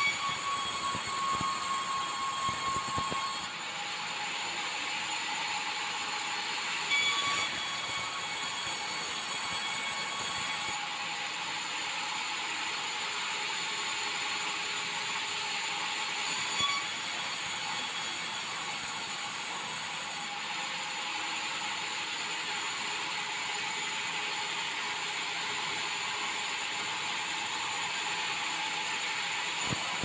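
Band sawmill running, its blade sawing bengkirai hardwood, with a steady mechanical din. A higher hiss comes and goes in stretches of a few seconds, with a couple of brief knocks along the way.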